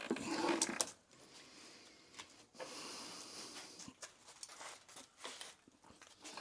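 Scattered light clicks and rustling of metal parts and tools being handled, loudest in the first second.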